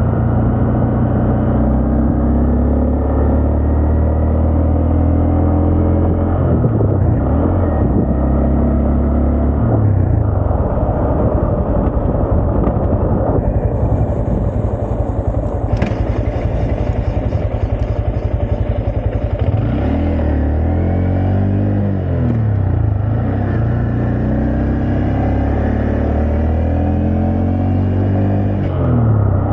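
Honda Grom 125 single-cylinder engine running while riding, its pitch rising and dropping back several times as the rider works through the gears.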